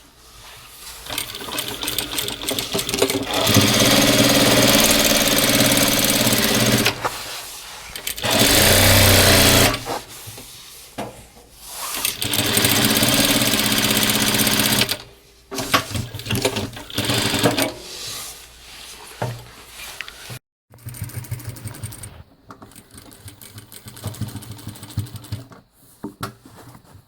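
Jack JK-9100-BH industrial lockstitch sewing machine stitching stretchy fabric in several runs of a few seconds each, the motor and needle running steadily with short stops between; the run about 8 seconds in is the loudest. After about 16 seconds come quieter, shorter stop-start bursts.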